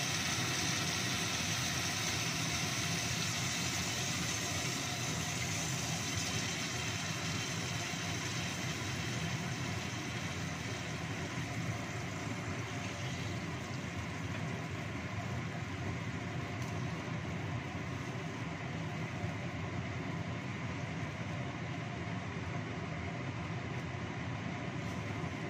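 Kitchen exhaust fan running, a steady drone that eases slightly about halfway through.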